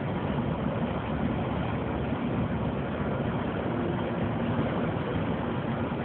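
Steady drone of a moving taxi cab heard from inside: engine and tyre noise at an even level.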